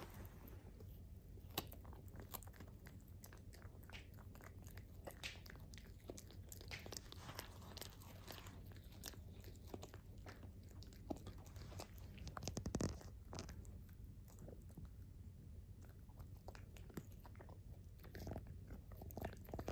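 Mame Shiba Inu chewing a green dental chew: faint, irregular crunching bites and clicks of teeth on the chew, with a louder bout of chewing a little past the middle.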